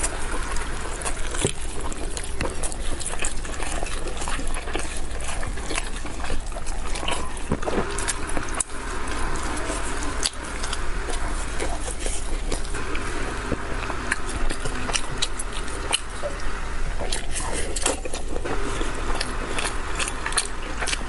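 Close-miked, wet, sticky squelching and tearing as a spicy braised pork elbow is pulled apart by gloved hands, mixed with chewing and mouth sounds. Many small sharp clicks and smacks run through it without a break.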